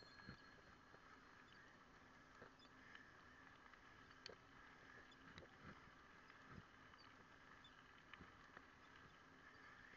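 Near silence: a faint steady hum with scattered light clicks and ticks.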